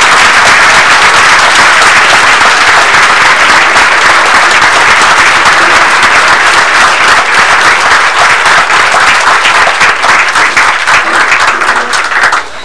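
Audience applauding with loud, sustained clapping, which thins a little into more separate claps near the end.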